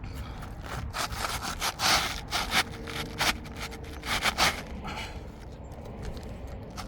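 A new GAF UHD asphalt shingle pushed up into place under the shingle above, its gritty granule surface scraping against the neighbouring shingles in several uneven strokes, loudest around two and four and a half seconds in.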